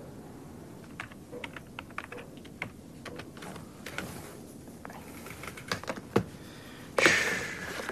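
Keys typed on a computer keyboard, clicking irregularly. Near the end a short, louder burst of hissing noise starts suddenly and fades out.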